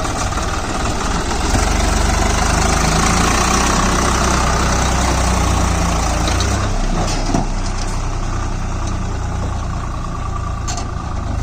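Swaraj 744 FE tractor's three-cylinder diesel engine running under load as it pulls a trolley heaped with stones, louder for the first several seconds and easing off a little after about six and a half seconds, with a single knock shortly after.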